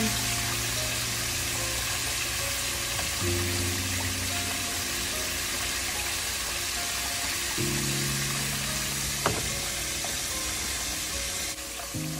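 Chicken frying in hot oil in a Dutch oven, a steady sizzle, under background music with held chords that change every few seconds. One sharp tap sounds about three quarters of the way through.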